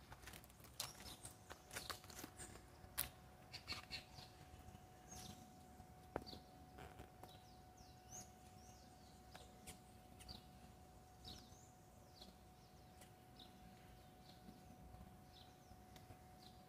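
Faint bird chirps from the park trees: many short, scattered calls throughout, with a few sharp clicks in the first few seconds and a faint steady hum underneath.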